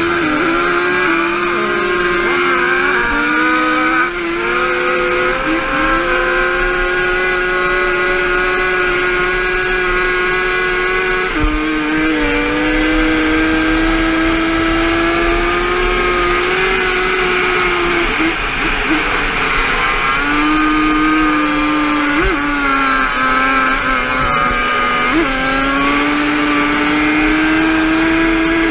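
Yamaha Banshee race quad's twin-cylinder two-stroke engine running hard at high revs, heard from on board. The engine note holds high and steady, dipping briefly and climbing back several times through the lap.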